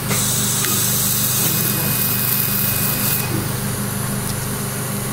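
Steady hum and hiss of surgical equipment running during laser soft-palate surgery, with a steady high tone that starts about half a second in and stops a little after three seconds.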